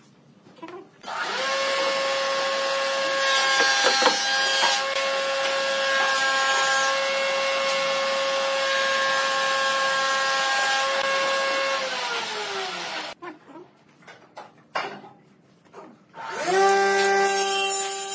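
A power tool's electric motor spins up and runs at a steady pitch for about eleven seconds, then winds down with a falling pitch. A few knocks follow, and the motor starts up again near the end.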